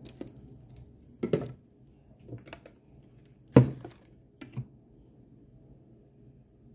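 A few short knocks and clicks, the loudest about three and a half seconds in, over a faint low hum.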